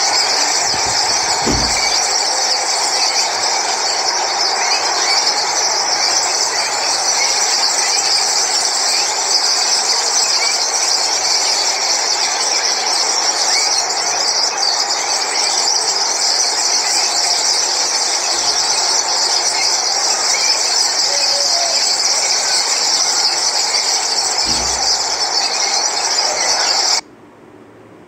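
Starlings chattering: a dense, unbroken wash of calls that cuts off suddenly about a second before the end.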